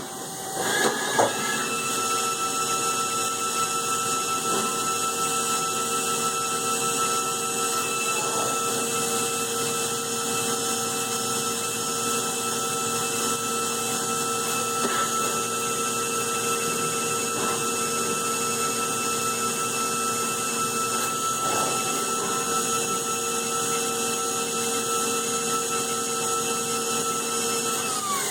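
Mazak CNC milling machine running steadily, its spindle whining at an even pitch while the cutter mills Delrin dry, without coolant. Near the end the whine drops in pitch as the spindle slows.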